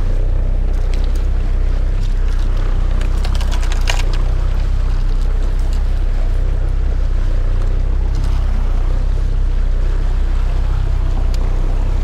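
Outboard motor running steadily as the boat moves through the water, with water rushing along the hull. A few short sharp clicks come about three to four seconds in.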